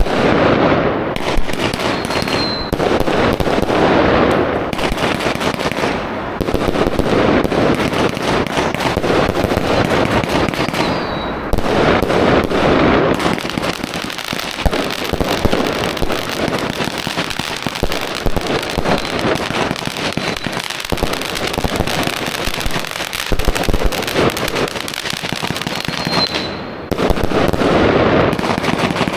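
A lit box of consumer fireworks firing continuously, a dense run of rapid bangs and crackling, with a few short high whistles among them.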